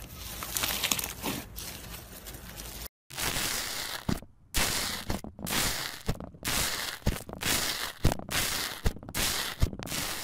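Slime being worked by hand: soft crackly squishing as foamy green slime is kneaded. After a cut, bubbly grey foam slime is pressed repeatedly with a metal stick, each press giving a sharp crackle of bursting air bubbles, about one a second.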